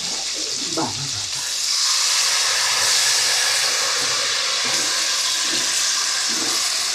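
Doodhi (bottle gourd) and spices sizzling in a hot pan, a steady frying hiss that grows louder about two seconds in.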